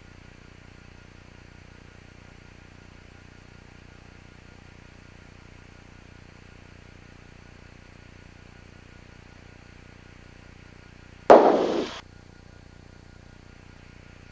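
Steady faint hiss and hum of an aircraft intercom and radio audio feed, with one loud burst of noise about eleven seconds in that fades out in under a second.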